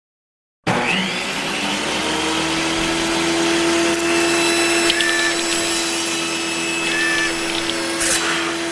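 A motor-driven machine starts abruptly and runs steadily at one constant pitch, then stops abruptly near the end.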